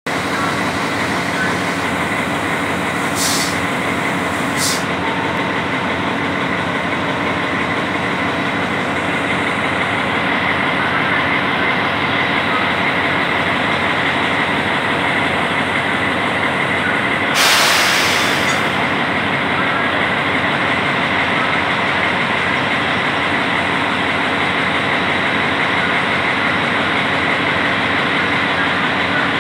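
Diesel engine of an SU45 locomotive idling steadily at a standstill. Two brief hisses come a few seconds in, and a louder hiss lasting about a second comes about seventeen seconds in.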